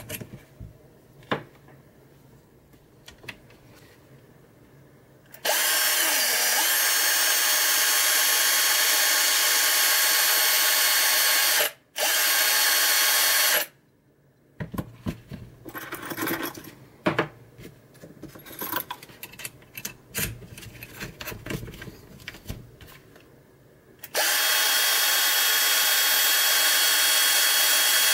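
TOPELEK electric drill running at a steady high whine in long spells. It stops for a moment and starts again, then falls silent while clicks and knocks of handling are heard, and runs again near the end.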